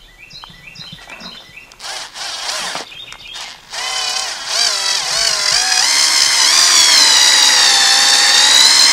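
Cordless drill/driver driving a screw through a vinyl rub rail into a boat's cap: a few short trigger bursts about two seconds in, then from about four seconds in a loud, steady motor whine that wavers in pitch as the screw bites and then holds. Birds chirp during the first two seconds.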